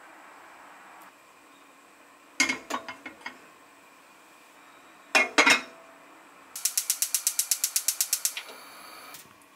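Cookware clattering in two short bursts of knocks as a pot is handled on a gas range, then the range's igniter clicking rapidly and evenly, about nine clicks a second for nearly two seconds, before a brief quieter steady sound as the burner lights.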